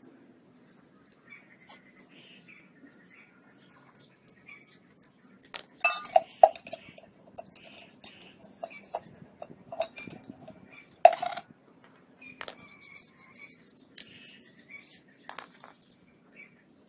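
Metal kettle being handled and worked on: scattered light metallic clinks and knocks, with louder ringing clanks about six and eleven seconds in. Faint short chirps sound in between.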